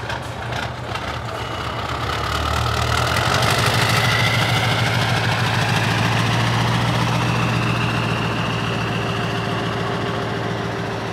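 Heavy truck's diesel engine running with a steady low hum. It grows louder over the first few seconds and then slowly fades.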